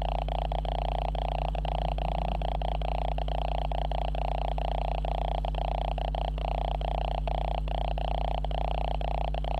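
The camera's own electrical noise: a steady, loud buzzing hum with a rapid flutter running through it, a fault in the camera's recording rather than any sound in the room.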